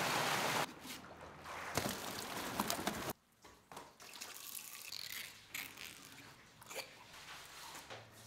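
Water trickling and dripping, with scattered small splashes and clicks; the sound changes abruptly a couple of times.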